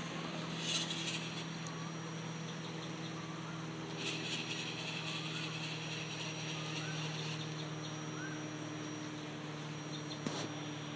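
Gmade R1 radio-controlled rock crawler's electric motor and geared drivetrain whining steadily as it crawls up a steep ramp, with a harsher stretch of drive noise while it climbs and a sharp click near the end.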